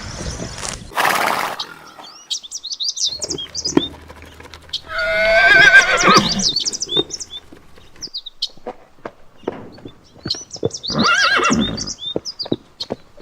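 Horse whinnying twice, each a loud quavering call, the first about five seconds in and the second near the end, with a short noisy snort about a second in. Small birds chirp in the background.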